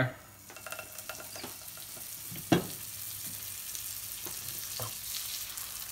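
Butter melting and sizzling in a hot non-stick frying pan around frying potato scones, a steady frying hiss. A sharp knock about two and a half seconds in, with a lighter one near the end.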